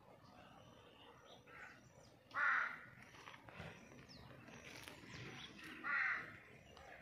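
A crow cawing twice, once about two and a half seconds in and again near the end, over faint outdoor background noise.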